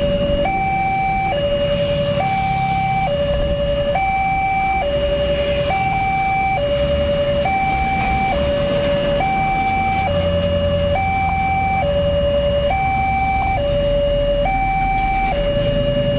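Railway level-crossing warning alarm sounding a steady two-tone alternation, a lower and a higher tone each held just under a second, repeating evenly as the crossing closes.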